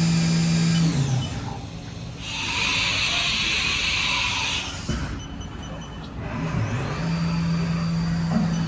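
Haas VF-3YT vertical machining center spindle whining steadily at 10,000 RPM, then winding down about a second in. A loud hiss follows for about two and a half seconds. Near the end the spindle spins back up with a rising whine.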